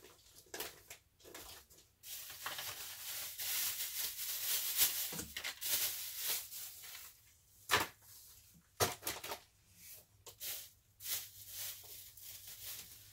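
Plastic bags crinkling and rustling as goods are handled and packed into a cardboard box, with a couple of sharp knocks about eight and nine seconds in.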